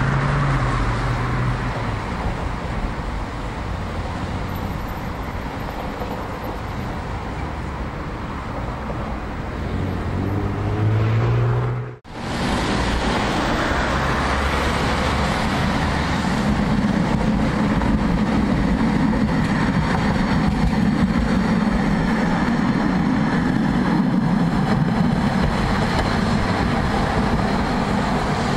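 Road traffic on a multi-lane road, with engines and tyres of passing cars. A vehicle speeds up just before the sound drops out briefly about twelve seconds in, and a steady lower rumble follows.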